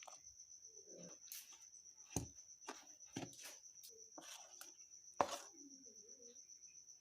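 A cricket chirping in a steady, high, pulsing trill, with several sharp knocks and clatters over it; the loudest knock comes about five seconds in.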